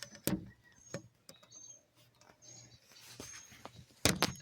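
Handling knocks and clicks as something is set up by hand, a few separate knocks with the loudest cluster near the end. Short high chirps, likely birds, are heard faintly between them.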